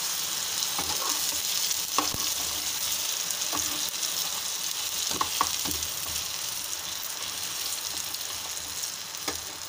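A besan-coated bread slice sizzling steadily as it shallow-fries in oil in a frying pan. A metal spatula taps and scrapes against the pan several times.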